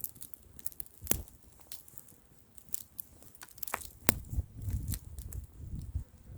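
Wood fire crackling with irregular sharp pops, the loudest about one second and four seconds in. Wind gusts buffet the microphone as a low rumble in the second half.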